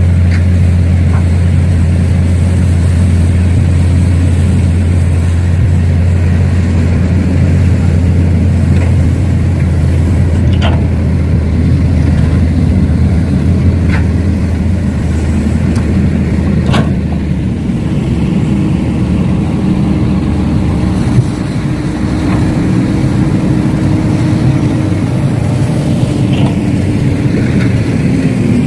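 Excavator or dump-truck engine running steadily with a deep hum that thins out a little past halfway, when a steady whine comes in. A few sharp clicks break through.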